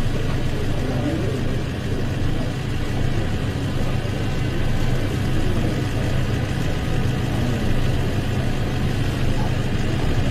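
Steady low engine hum with faint distant voices over it.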